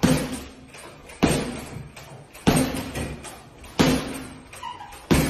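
Boxing-gloved punches landing on a hanging heavy punching bag: five heavy thuds about a second and a quarter apart, each ringing off briefly.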